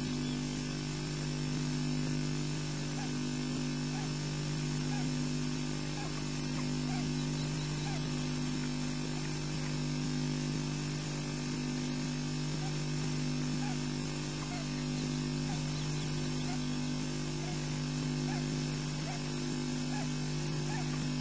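Steady electrical hum from the nest camera's audio feed, unchanging throughout, with faint short rising notes now and then.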